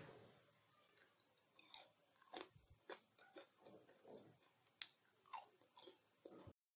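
Faint, irregular crisp crunches of caramel-coated fried bread cubes being bitten and chewed, the loudest crunch about five seconds in; the sound stops suddenly near the end.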